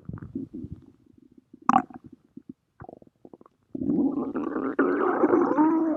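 Stomach growling: faint scattered gurgles at first, then, a little past halfway, a longer and louder rumble whose pitch wavers up and down.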